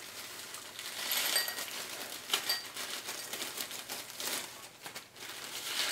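Crushed candy cane pieces pouring out of a plastic sandwich bag into a small glass bowl: the bag crinkling while the hard sugar bits fall in as many small clicks and clinks against the glass, starting about a second in.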